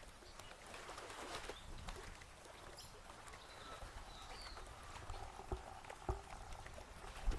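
Small waves lapping at a muddy river shore among mangrove seedlings, with a low wind rumble and a few soft water slaps in the second half. A few faint bird calls.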